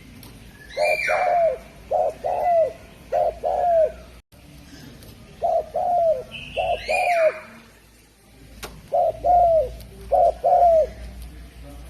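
Spotted dove (derkuku) cooing: three phrases of short, hoarse coo notes in quick pairs, each phrase about two seconds long, with pauses between them. A fainter, higher call sounds alongside the first two phrases.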